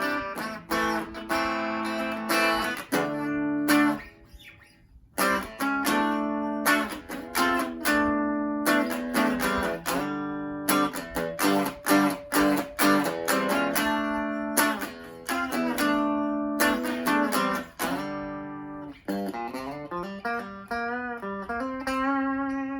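FireFly FFTL Telecaster-style electric guitar on its bridge pickup, played at low volume through a small Blackstar amp: strummed chords and picked notes in phrases, with a couple of short breaks and notes gliding in pitch near the end.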